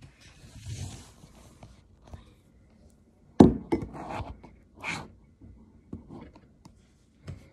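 A phone being handled and set in place on a desk: rustling, then one loud sharp knock about three and a half seconds in, followed by several lighter taps and clicks.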